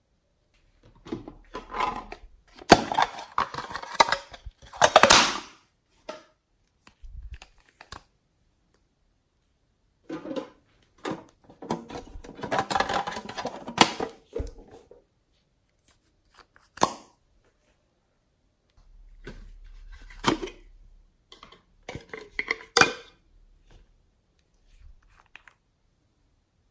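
Fingers pressing into and working slime in a glass tray: crackly, sticky squishing in three spells, with a few sharp clicks between them.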